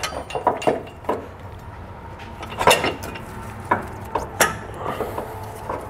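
Scattered metal clinks and knocks, the loudest about two and a half seconds in, as the metal brackets of an Air Lift LoadLifter 5000 air helper spring assembly are handled and set into position over a pickup's rear axle and spring perch.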